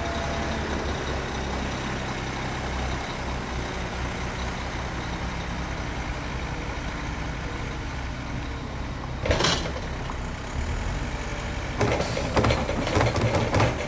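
Diesel engines of a wheel loader and a dump truck running steadily. About nine seconds in there is a short loud burst. From about twelve seconds on, a louder stretch of rapid knocks and rattles follows as the loader tips a bucket of snow into the steel truck bed.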